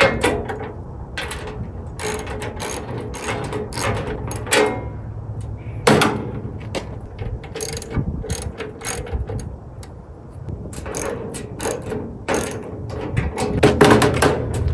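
Socket ratchet with a 13 mm socket clicking in repeated strokes as it tightens a locking nut on a tool cart's gas strut.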